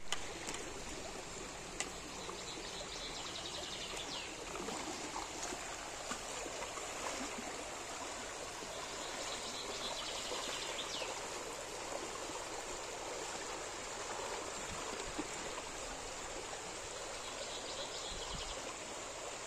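Shallow stream rushing steadily over rocks, with a few faint, high chirping trills now and then.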